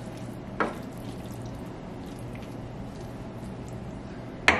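Wooden spoon stirring rotini, tomatoes and mozzarella cubes in a stainless steel sauté pan, a soft wet squishing. There is a single click about half a second in, and near the end a quick run of sharp clanks against the pan.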